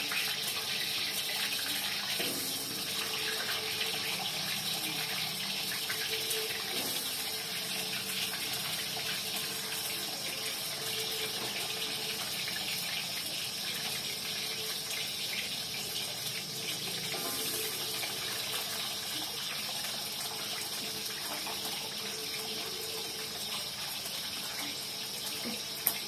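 Cassava pieces deep-frying in hot oil in a wok, a steady sizzle with one sharp knock near the end.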